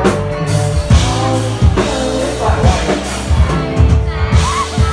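Live band playing a rock song, with a drum kit keeping a steady beat under a singer's voice.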